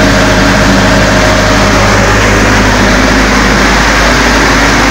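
A 22 kVA Able diesel generator running steadily, heard close to its enclosure, with an even drone that does not change. It has started automatically on a simulated mains outage and is carrying the camp's power.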